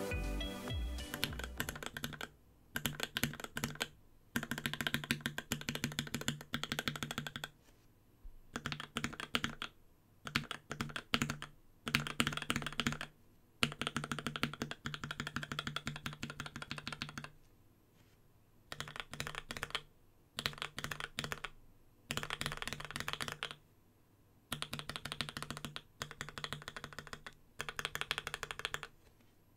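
Typing in bursts of one to three seconds on a mechanical keyboard with lubed Tealios V2 linear switches, a carbon-fibre plate and an aluminium case, fitted with Cherry-profile keycaps. Each burst is a rapid run of key clacks, with short pauses between bursts. Music fades out in the first second.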